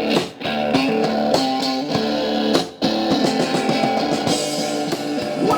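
Live rock band playing an instrumental passage led by electric guitar, with two brief breaks in the sound, one shortly after the start and one near the three-second mark.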